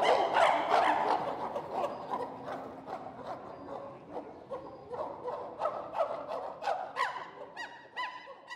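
Chimpanzees calling together: many overlapping hoots and cries that fade out gradually. Near the end there is a run of short falling calls, about three a second.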